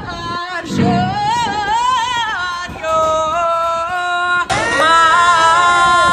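A woman singing into a microphone over electric keyboard accompaniment. About four and a half seconds in, the sound changes suddenly to long held notes.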